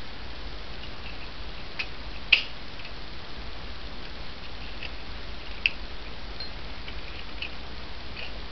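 Steady low hum and hiss with a few scattered sharp small clicks, the loudest about two seconds in and another near the middle.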